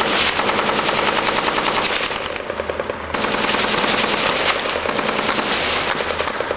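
Automatic-weapons fire in a firefight: many rapid shots overlapping in long, sustained bursts, with a short lull about two and a half seconds in before it picks up again.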